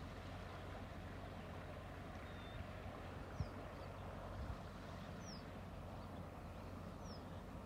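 Faint, steady outdoor background noise with a low hum, and a few brief, high, falling chirps through it.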